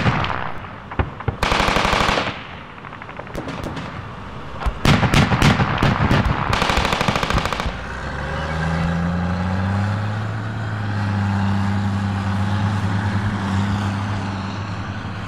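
Several bursts of automatic gunfire from a LAV armoured vehicle's guns over the first eight seconds, some in fast runs. From about eight seconds in, the vehicle's engine runs steadily as it drives off.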